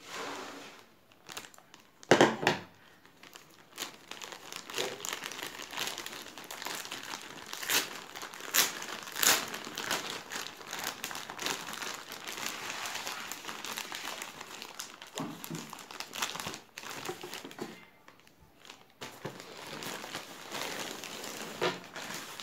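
Plastic courier mailer and polythene packaging crinkling and rustling as it is pulled open by hand. There are sharp loud crackles about two seconds in and several more around eight to nine seconds, and a short lull near the end.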